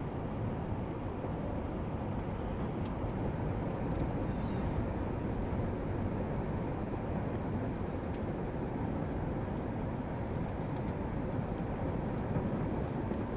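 Steady rumble of an Airbus A380 heard from inside the passenger cabin: engine and airflow noise, even throughout, with a few faint clicks.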